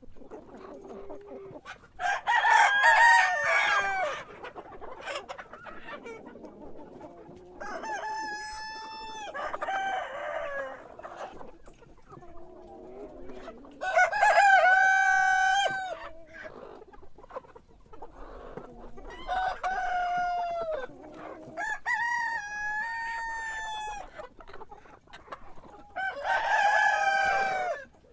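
Rooster crowing over and over, about seven long crows a few seconds apart, with quieter sounds between them.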